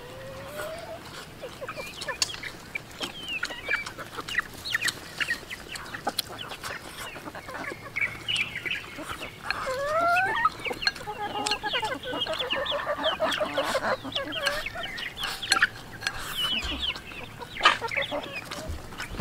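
Chickens clucking on and off, busiest in the middle stretch, over close eating sounds: chewing and chopsticks clicking against a ceramic bowl.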